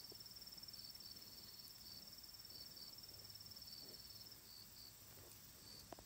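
Near silence with faint insects chirping: a high, rapid trill that fades out about four seconds in, over short chirps repeating every second or so.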